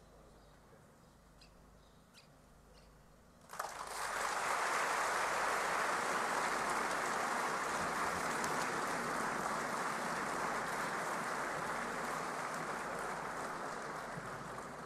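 Large audience applauding, starting suddenly about three and a half seconds in and continuing steadily; before that only faint room tone with a few light clicks.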